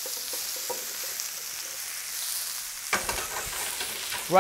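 Sliced onions sizzling in hot olive oil in a flat pan. Near the end come a few knocks of a spatula stirring the pan.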